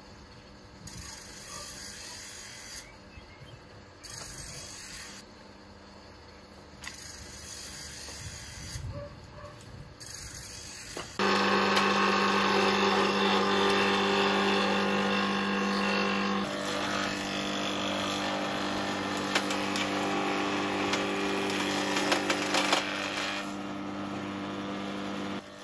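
An electric power tool starts suddenly about eleven seconds in and runs steadily with a held whine, changing slightly a couple of times. Before it there are quieter handling noises and patches of hiss.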